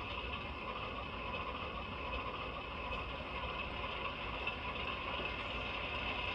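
ESU sound decoder in an HO-scale Walthers Mainline GP9 locomotive model playing its diesel engine sound, running steadily through the model's small onboard speaker, thin and without deep bass.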